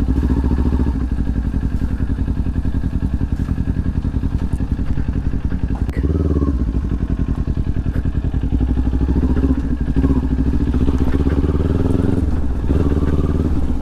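Kawasaki Ninja 400's parallel-twin engine running while riding, heard from the rider's on-board camera. Its pitch shifts as the revs change about six seconds in and again near the end.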